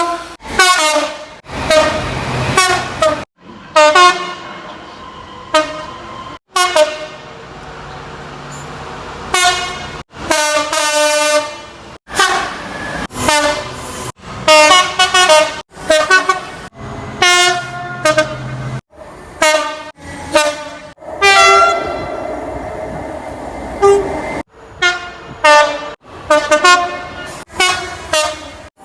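Train horns: a quick run of short horn blasts of differing pitch, one clip after another with abrupt cuts between them. A train's running rumble sits under some of the gaps.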